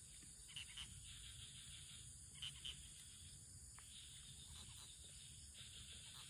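Near silence: faint outdoor ambience, a steady high hiss with a few brief chirps in pairs about half a second and two and a half seconds in.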